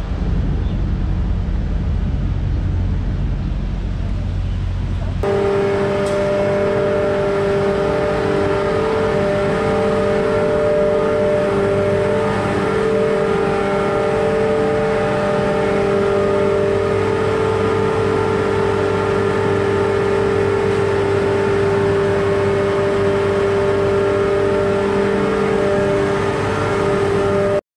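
Steady machine hum of several fixed tones from electric motors and compressors running in an industrial plant room. It follows a few seconds of low outdoor rumble that cuts off abruptly.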